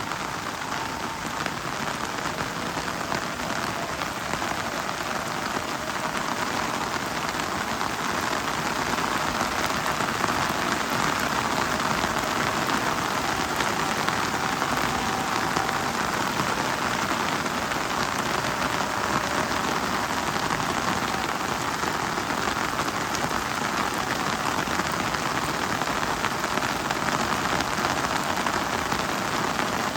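Heavy rain falling steadily, an even dense hiss of drops on leaves and surfaces, growing slightly louder about eight seconds in.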